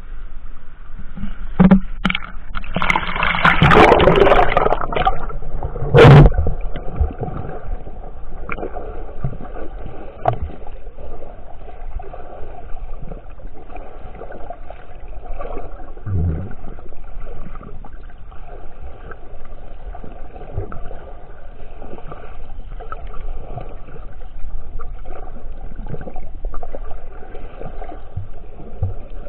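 Splashing and rushing water as a camera goes under the sea surface, loudest about six seconds in, then the steady muffled sound of swimming underwater with a few faint knocks and one low thump.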